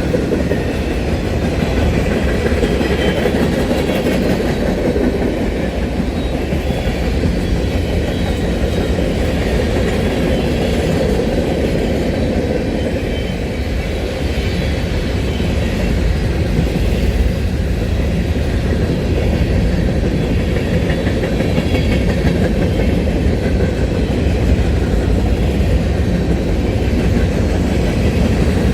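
Train cars rolling steadily past at close range: a continuous low rumble with the clickety-clack of wheels over the rail joints.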